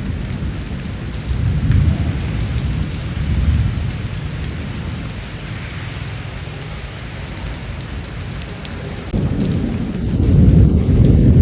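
Steady rain falling, with low rolling thunder rumbling underneath; the thunder swells briefly early on and builds louder near the end.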